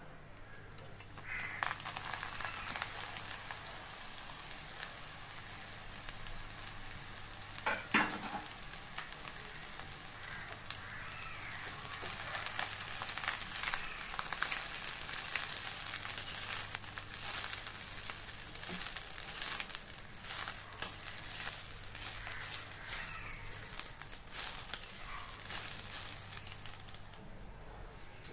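Chopped gongura (sorrel) leaves sizzling and crackling as they fry in oil in a steel kadai. The sizzle starts about a second and a half in as the leaves go into the hot oil. A spatula stirs them, scraping and tapping the pan, with one louder knock about eight seconds in.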